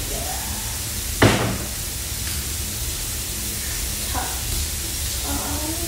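A kitchen wall cabinet door shutting with a single sharp knock about a second in, over a steady low background hum.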